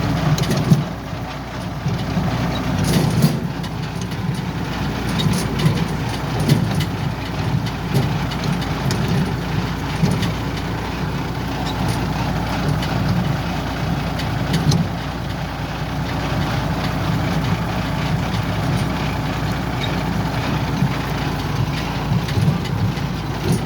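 Yanmar combine harvester running steadily, with a few sharp clicks over the engine.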